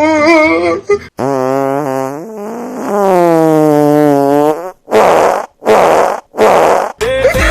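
Fart sounds: a short buzzing fart a little after a second in, then a longer one that slowly drops in pitch, followed by three short hissing puffs.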